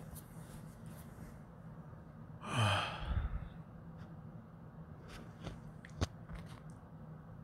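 A person's long sigh, sliding down in pitch, about two and a half seconds in, followed by a soft low bump. A single sharp click comes near the end.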